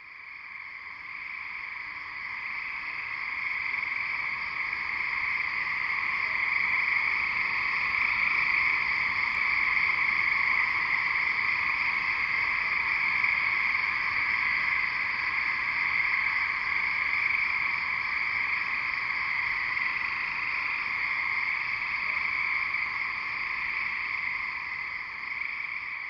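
A dense chorus of 17-year periodical cicadas, a steady, shrill drone that swells up over the first several seconds and then holds.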